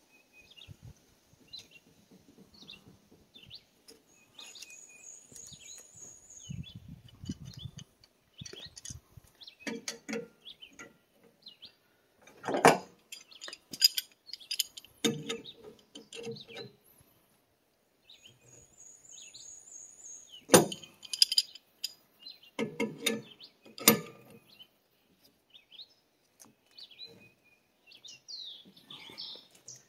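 Brass pipe fittings and a pipe wrench clinking and knocking as a pressure tank's valve assembly is threaded together by hand, a few sharp knocks at irregular intervals. Small birds chirp throughout, with a high trilling call twice.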